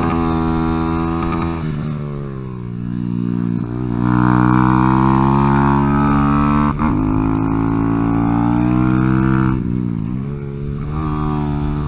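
Kawasaki Z125's single-cylinder engine heard onboard on a track lap: the engine note falls as the throttle closes about two seconds in, then climbs steadily under throttle with a brief break near seven seconds, and drops again near ten seconds as the rider backs off. Wind rush sits under the engine.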